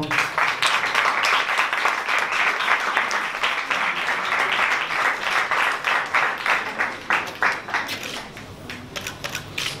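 Audience applauding: dense clapping that thins to a few scattered claps about eight seconds in.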